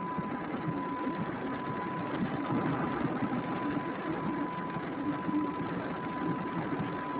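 Car engine idling, heard from inside the cabin, with a steady high-pitched whine alongside.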